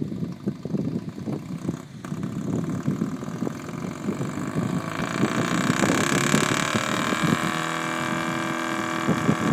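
John Deere 730 diesel's small gasoline pony engine starting and running, uneven and low at first. About five seconds in it speeds up to a louder, higher-pitched, steady run.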